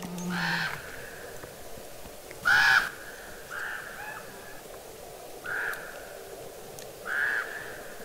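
Crows cawing: about six separate caws spaced irregularly, the loudest about two and a half seconds in.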